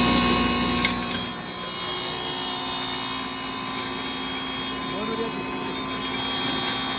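Singhara (water chestnut) flour grinder machine running steadily, a constant machine whine made of several steady tones, a little louder in the first second or so.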